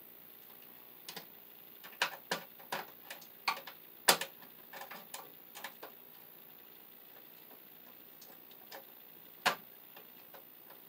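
Hand tools and copper wire clicking and tapping against a metal electrical sub panel as the black feed wire is worked into its terminal lug: scattered sharp clicks, thickest in the first half, with the loudest about four seconds in and another strong one near the end.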